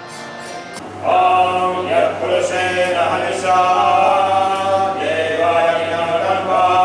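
Voices chanting mantras in long held notes over a steady low drone, starting about a second in.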